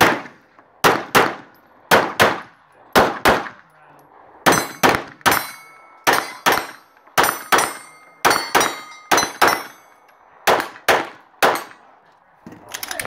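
Glock 34 9mm pistol fired rapidly, about two dozen shots mostly in quick pairs, two shots per target. In the middle stretch several hits set steel plates ringing with a high clang.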